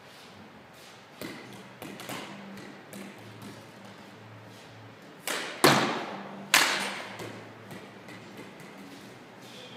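Floorball stick and plastic ball: a few light taps of the stick on the ball, then three sharp cracks a little past halfway, the last two the loudest, each echoing briefly in the hard-walled hall.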